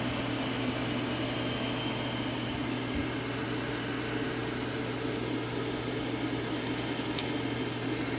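DeWalt 12-gallon wet/dry shop vacuum running steadily at full speed: an even rush of air over a steady motor hum and a faint whine.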